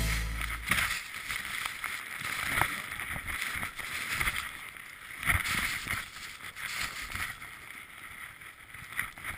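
Hiss of a rider carving turns through deep powder snow, swelling and easing every second or two, with a few light knocks and some wind on the microphone.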